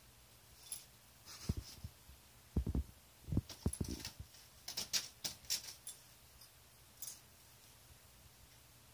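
A puppy fussing at a metal floor heat register: a few short soft low thumps, then a quick run of light scratchy clicks, with one more click a little later.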